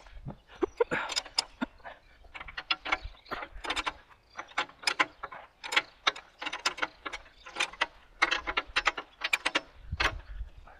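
Hand ratchet wrench clicking in short runs of rapid ticks, over and over, as bolts on the tractor's loader frame are turned.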